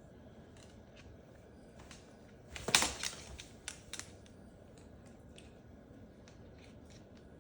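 Scattered taps and scratches as a Moluccan cockatoo goes at a plastic toy, with a short burst of clattering about two and a half seconds in and a few sharp clicks a second later.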